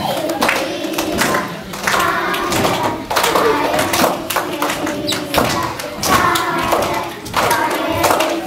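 Young children's voices singing together, over dull thumps about once a second.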